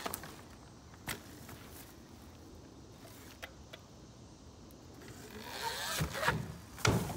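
Talaria xXx electric dirt bike: the electric motor whines up in pitch as the rider accelerates, and the tyres and suspension knock loudly twice near the end as the bike climbs onto the ramp. There is a single sharp click about a second in.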